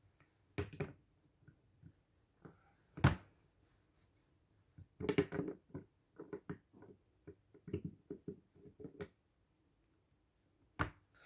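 Metal pump parts and hand tools clinking and knocking on a workbench while a hydraulic pump section is fitted back together by hand: irregular small clicks, with a sharper knock about three seconds in and another near the end.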